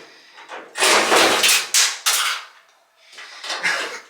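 Clattering and scraping of dryer parts and screws being handled during disassembly. A loud run of knocks and scrapes lasts about a second and a half, then the noise drops away briefly before another starts.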